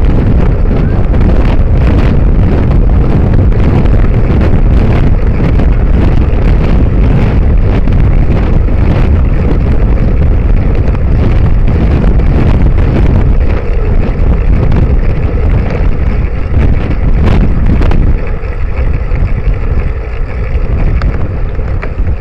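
Heavy wind buffeting on the microphone of a bicycle-mounted rear-facing camera while riding at speed, with low road rumble and a few sharp knocks. The buffeting eases somewhat near the end.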